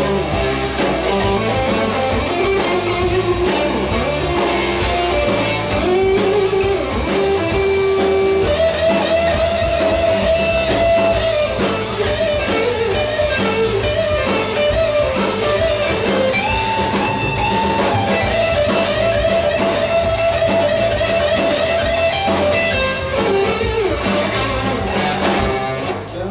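Live rock band playing an instrumental passage: an electric guitar, Firebird-style, leads with long held and bent notes over electric bass and a drum kit keeping a steady beat on the cymbals.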